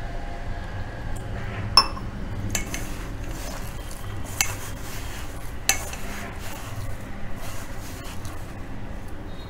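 Hands mixing and kneading crumbly wheat-flour dough in a stainless steel bowl: soft rubbing and squishing, with about four sharp metallic clinks against the steel bowl.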